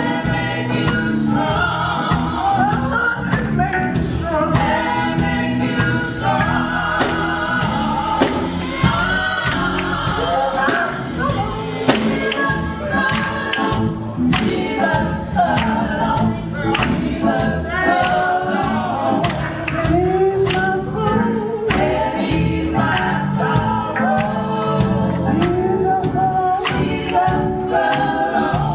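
Recorded gospel quartet music: a group of women singing in close harmony over a band with a steady beat.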